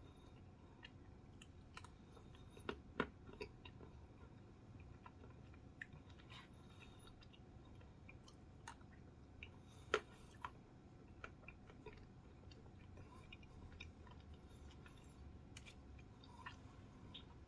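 Quiet mouth sounds of a person chewing a spoonful of Blizzard soft serve with frozen Reese's Peanut Butter Cup pieces and graham crust, with scattered small clicks and crunches, the loudest two about 3 and 10 seconds in.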